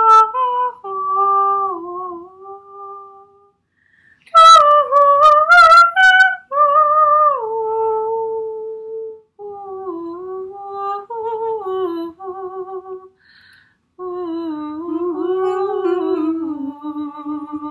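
Women's voices free-styling wordless, siren-like melodies: long held and gliding notes with vibrato, broken by brief pauses. The loudest, brightest phrase comes about four to six seconds in.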